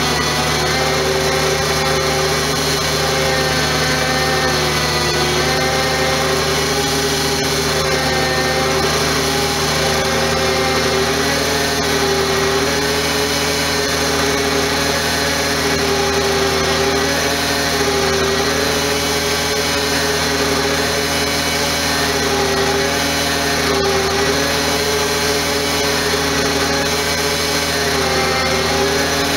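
Bed truck's engine and winch running steadily under load, a constant whine with a slight regular waver about every two seconds, as the winch line pulls a stuck cement bulker in.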